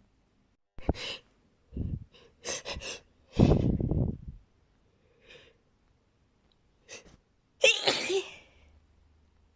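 A person sneezing several times in a row, with short catching breaths building up between the sneezes. Two of the bursts are loud, one about halfway through and one near the end.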